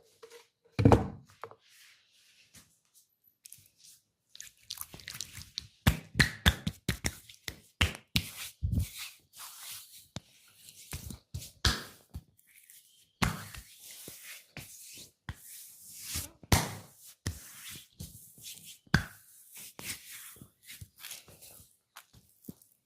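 Hands slapping, tapping and rubbing on a person's head and body during a massage: one thump about a second in, then, from a few seconds in, a quick irregular run of sharp slaps and knocks with softer rubbing between them.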